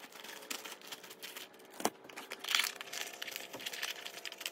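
Crinkling and rustling of a bag of instant dry yeast being handled as yeast is spooned out of it into a cup of water, with many small crackles and clicks and one sharper tap a little under two seconds in.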